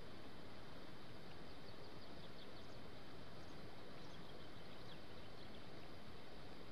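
Quiet outdoor ambience: a steady, even hiss with faint, short, high chirps of distant birds now and then.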